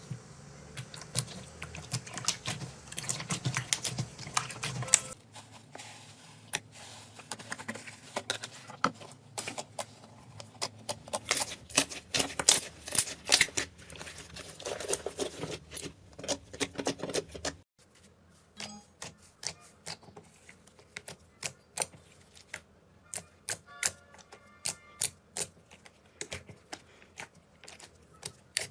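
Slime being pressed and poked by hand, crackling and popping in quick sharp clicks, in a few successive clips that change abruptly about five and eighteen seconds in; the last clip has fewer, more evenly spaced pops.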